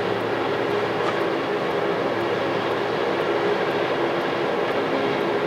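Steady mechanical drone with several held low tones, unchanging throughout.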